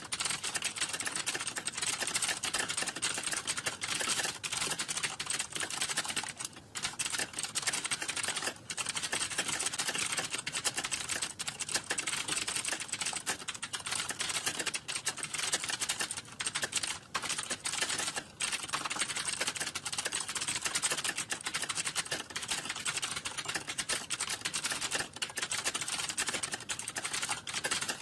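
Fast, continuous typing on a computer keyboard: a rapid stream of key clicks with a few brief pauses, around 6 to 7 seconds in, near 8.5 seconds and near 18 seconds.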